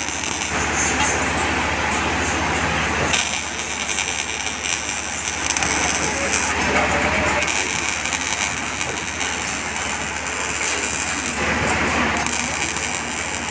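MIG welder arc crackling steadily, in several welding runs that stop and start every few seconds.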